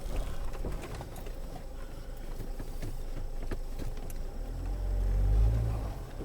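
Land Rover Freelander 2 heard from inside the cabin, engine running low as it crawls over rocks, with scattered knocks from the body and suspension. The engine rises in a louder swell about four and a half seconds in, then drops back.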